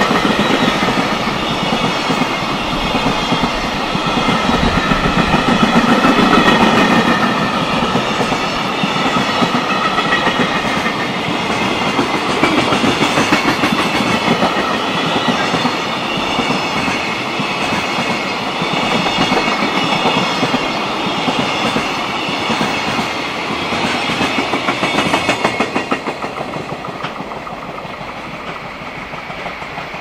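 A JR Freight container train's flat wagons rolling past at close range, with a fast, even clatter of wheels over the track. About 26 seconds in, the end of the train goes by and the sound drops off to a fading rumble.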